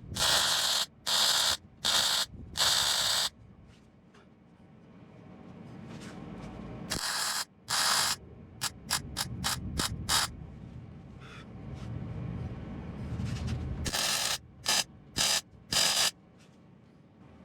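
MIG welder tack- and plug-welding a steel repair panel onto a car's rear wheel arch: a run of short welding bursts, some just under a second and some only a fraction of a second, with pauses between.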